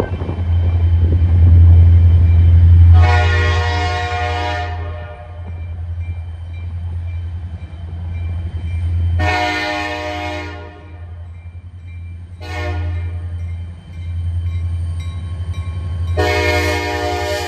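Diesel locomotives of a Wheeling & Lake Erie freight train running with a steady low engine rumble, loudest in the first few seconds. The lead unit sounds its multi-chime air horn in the grade-crossing pattern: long, long, short, long, with the last long blast still sounding at the end.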